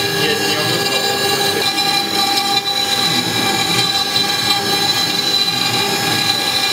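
CNC-6090 router spindle whining steadily as its cutter mills wet sandstone under a water-coolant spray, with a rough grinding noise of the cut beneath the whine. A lower hum drops out about a second and a half in.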